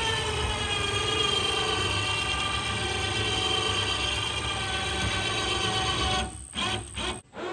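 Electric winch pulling a log up into a trailer, running with a steady whine under load. It stops about six seconds in and is then bumped on in two or three short bursts.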